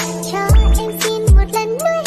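Upbeat background music with a steady kick-drum beat and gliding synth or sung melody lines.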